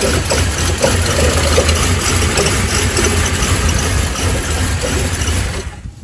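GM 3800 Series III V6 in a 2005 Buick Lacrosse running poorly. This is the best it would do after a cold night, when it would not start and run properly, a fault later traced to a failing MAP sensor. The engine sound stops near the end.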